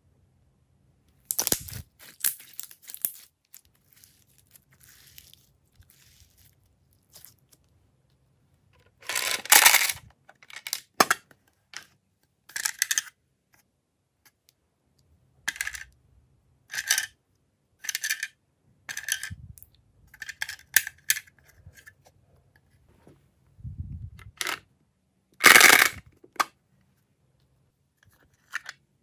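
Small plastic cupcake and dessert charms clicking and rattling against each other and the walls of a clear plastic box as they are shaken and picked out, in short scattered bursts of clicks. Two bursts, about 9 s in and near the end, are the loudest.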